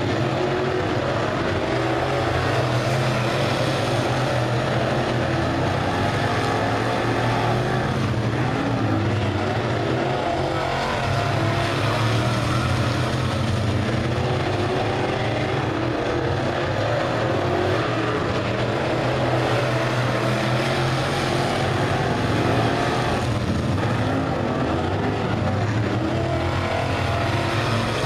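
Several dirt-track race cars with GM 602 crate small-block V8 engines running hot laps together, a steady unbroken engine drone from the pack circling the oval.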